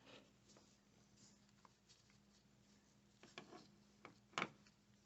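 Near silence broken by a few faint clicks and a sharper click about four and a half seconds in: metal handling noises as the negative cable clamp is fitted back onto the car battery's terminal post.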